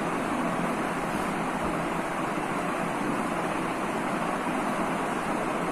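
Steady background hiss, an even level of noise with no strokes or changes in it.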